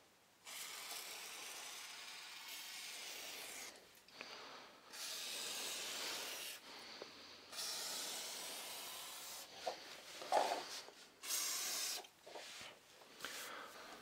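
Aerosol can of silicone lubricant spraying in a series of hissing bursts into the joint between laminate floor boards, to stop the boards creaking. The first burst lasts about three seconds, the later ones get shorter, and there is a brief knock about ten seconds in.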